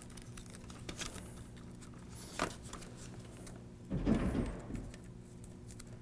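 Hands working a Velcro cable tie around a bundle of PC power cables: soft rustling and crinkling of the wires, a brief rasp of the hook-and-loop strap about two seconds in, and louder handling noise about four seconds in.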